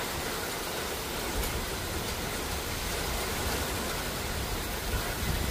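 Heavy thunderstorm rain falling in a steady, even hiss, with gusty wind adding a low rumble that swells now and then.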